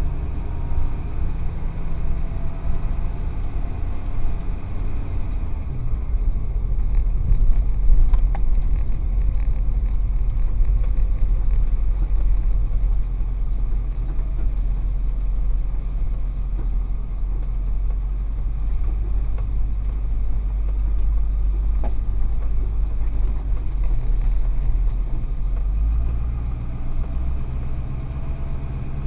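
Tow truck engine running steadily with a low rumble while the truck maneuvers at low speed.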